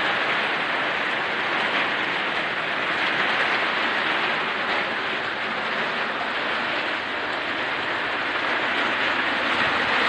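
Heavy typhoon rain and wind: a steady, dense rush of rain with no break or change.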